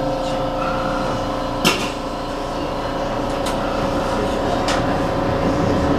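Electric commuter train running, heard from inside the driver's cab: a steady hum of several tones, with a sharp click about a second and a half in and two fainter clicks later.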